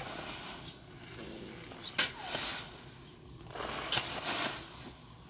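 A shovel scooping and turning over a pile of granular fertilizer on a plastic tarp: a sharp scrape of the blade three times, about two seconds apart, each followed by the hiss of granules sliding and pouring off.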